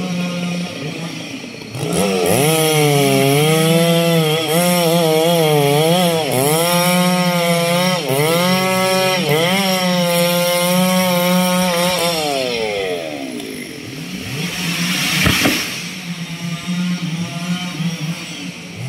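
Two-stroke chainsaw idling, then revved up about two seconds in and cutting into a rubber tree trunk, its engine pitch dipping and recovering under load for about ten seconds before it winds back down to idle. A short loud burst of noise comes near the end.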